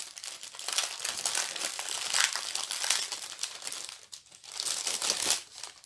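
Small plastic bags of diamond-painting rhinestones crinkling as they are handled, with a brief lull about four seconds in.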